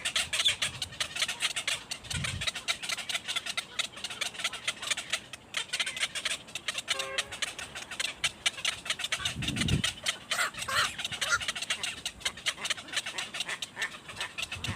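Birds calling in a dense stream of short, rapid chirps, with a couple of low thumps, one about two seconds in and one near ten seconds.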